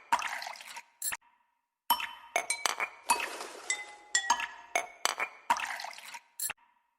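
Background music built from bright glassy clinks and chime-like strikes in a repeating pattern, broken by two short silent gaps, about a second in and near the end.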